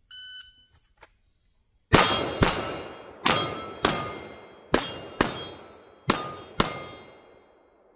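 A shot timer beeps once, then a pistol fires eight shots in four pairs, about half a second apart within each pair and just under a second between pairs. Each shot has a metallic ring, typical of hits on steel targets.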